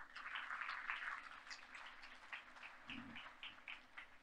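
Audience applauding, dense clapping at first that thins out into scattered single claps.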